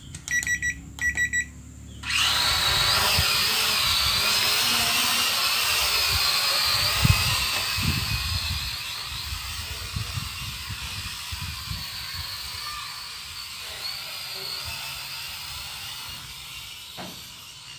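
A few short electronic beeps, then, about two seconds in, the small brushed motors of a toy quadcopter (UDI U46 motors in a larger ORC drone body) start with a loud, high, wavering whine as it lifts off. The whine slowly fades as the drone flies away. The motors are carrying a body the owner judges too heavy for them.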